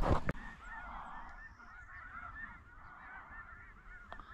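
A brief knock right at the start, then a dense chorus of snow geese calling: many short, high honks overlapping without a break.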